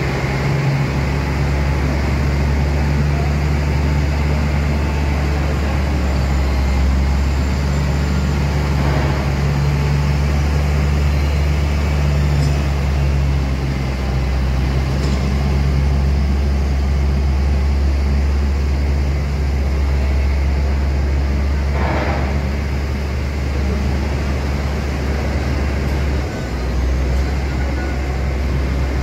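Heavy diesel truck engines running with a steady low drone, with a brief sharp noise about 22 seconds in.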